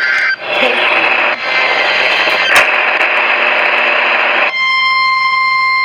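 Loud hiss of static on a NOAA Weather Radio broadcast. About four and a half seconds in, it switches to one steady single-pitch tone with overtones, the weather radio's warning alarm tone that announces an alert about to be read.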